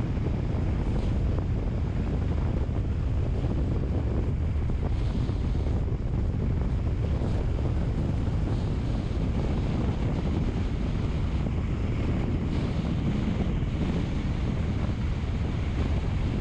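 Steady low rumble of noise, even in level throughout, heaviest in the bass.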